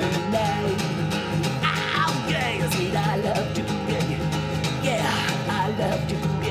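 Music led by acoustic guitar, with a steady accompaniment and a melody line over it.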